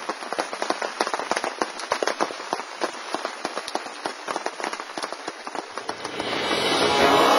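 Footsteps crunching through dry fallen leaves, a dense, uneven run of crackles. Music fades in near the end.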